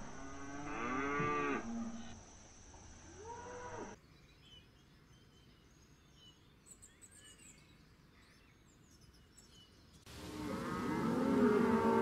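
Cow mooing twice in the first few seconds. A quiet stretch follows with faint bird chirps, then cattle start mooing again loudly about ten seconds in.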